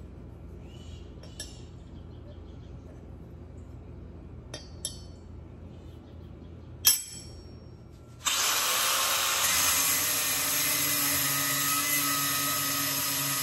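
A few light metallic clicks as a steel garden-shear blade is handled. About eight seconds in, an angle grinder starts abruptly, cutting into the steel blade clamped in a vise with a loud, steady grinding.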